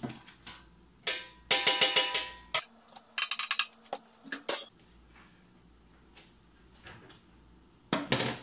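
Metal baking pans clattering and clanking with a ringing tone, followed by a quick run of clicks, a couple of single clicks, and one more short clank near the end.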